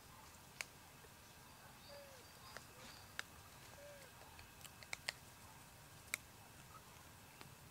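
Faint, near-quiet outdoor background with a handful of isolated sharp clicks and two or three soft, short calls that rise and fall in pitch.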